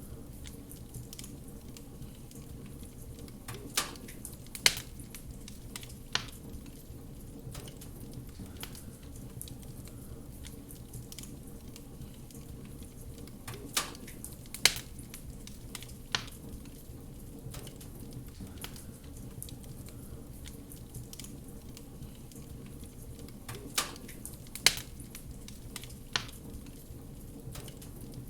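Wood fire crackling in a fireplace: a steady low hiss full of small ticks, with loud sharp pops coming in small groups roughly every ten seconds.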